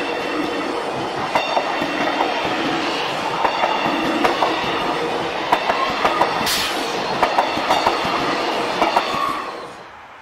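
Six-car X'Trapolis 100 electric suburban train passing close by, its wheels clicking over rail joints in an uneven clickety-clack over a steady running rumble. The sound cuts off sharply near the end, leaving only faint background.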